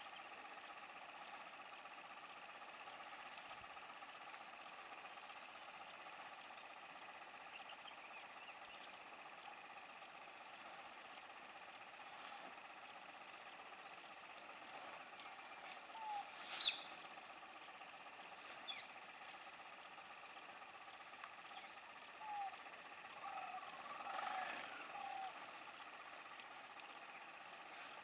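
A high-pitched insect call, pulsing steadily about twice a second, with a few short bird chirps about halfway through and again near the end.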